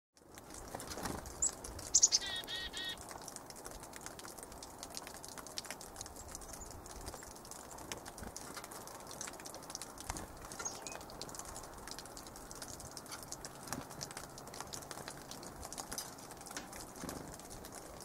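Black-capped chickadee giving one short chick-a-dee call about two seconds in, over a steady background hiss. Scattered light taps and brief wing flutters follow as chickadees come and go at the feeder.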